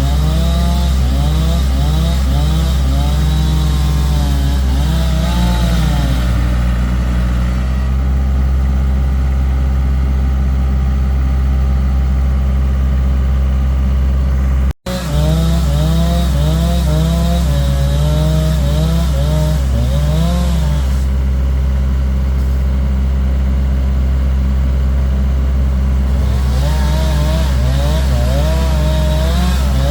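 Engine running steadily under load, with a whine that rises and falls in pitch over and over. It drops out for a split second about halfway through.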